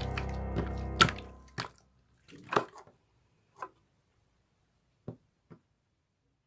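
Background music fading out, then slime being squished and poked by hand: a few short, separate wet squelches and pops, spaced out and growing fainter.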